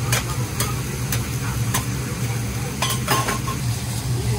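Metal okonomiyaki spatulas clinking and scraping on a steel teppan griddle, about six irregular sharp strikes, over a steady sizzle from the hot plate.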